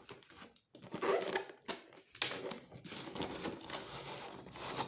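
Packaging being handled and unwrapped by hand: irregular crinkling and rustling with scattered sharp clicks and taps.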